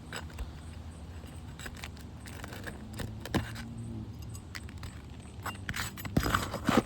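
Light metallic clinks and scrapes of a hand tool working roofing nails out of an asphalt shingle, with a denser run of clicks near the end.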